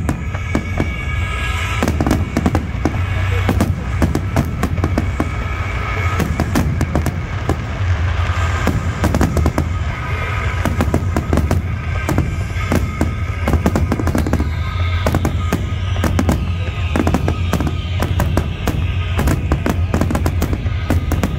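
Fireworks bursting in a dense, irregular string of bangs, with music playing underneath and a steady low hum.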